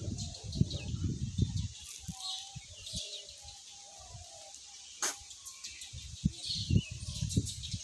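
Outdoor ambience: short bird chirps and a steady high hiss, with low rumbling on the microphone near the start and again near the end, and one sharp click about five seconds in.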